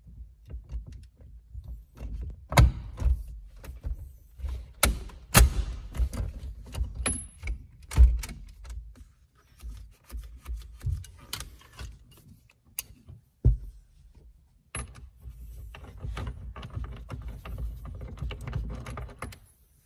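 Ratchet and 13/16 socket working loose a steering wheel retaining nut: irregular metal clicks and sharp knocks, the loudest in the first half. Then lighter clicks and rattling as the nut is spun off by hand and handled.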